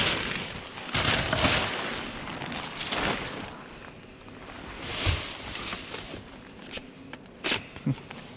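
Rubbish being rummaged through by hand in a bin: rustling of bags and clothing in several swells, with a few sharp clicks and knocks near the end as a DVD case is picked out.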